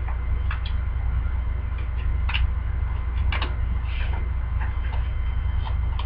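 Irregular light clicks and ticks from trading cards being handled and set down, over a steady low hum.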